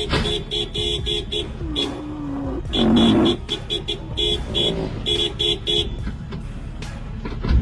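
Vehicle horn sounded in quick runs of short toots, with one louder, noisy burst about three seconds in.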